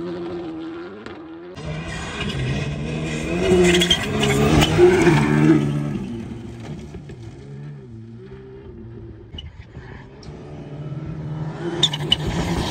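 Škoda Fabia Rally2 rally car's turbocharged four-cylinder engine revving hard, pitch climbing and dropping through gear changes. It is loudest a few seconds in, fades to its quietest past the middle, and grows louder again near the end as the car approaches.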